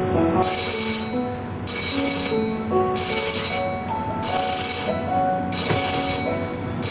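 A railway level-crossing alarm bell ringing in short bursts, a little under one burst a second, over background music.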